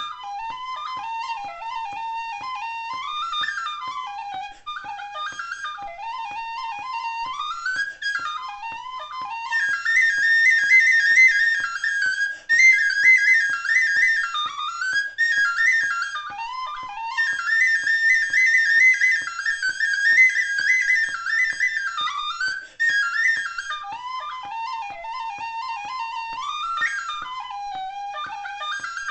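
Killarney tin whistle playing a fast Irish reel, a quick single-line melody with ornaments. About ten seconds in the tune climbs into the upper octave and gets louder, dropping back to the lower octave a little after twenty seconds.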